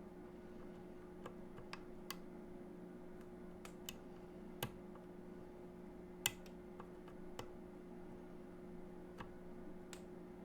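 Irregular small clicks of a lock pick and tension tool working inside a DOM Diamant cylinder lock, about a dozen, the sharpest a little under five and a little over six seconds in, over a steady low hum.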